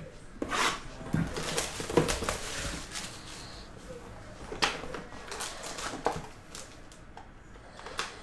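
A cardboard trading-card hobby box being handled and opened, with its foil-wrapped card packs rustling as they are pulled out. Irregular rustles and taps, busiest in the first three seconds, with a couple of sharp ticks later on.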